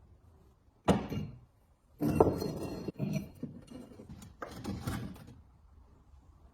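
Parts being handled: a sharp knock, a stretch of scraping, another knock, then more rubbing and clatter.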